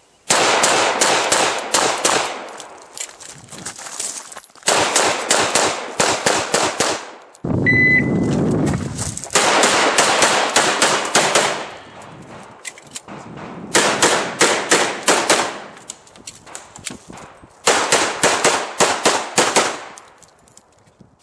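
Rapid strings of pistol shots from a Sig 1911 during a USPSA Single Stack course of fire. The shots come in several quick bursts with short pauses between them. A short electronic shot-timer beep sounds about eight seconds in.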